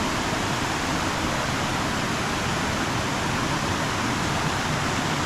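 Steady rushing of a mountain stream flowing fast over rocks, a constant even wash of water.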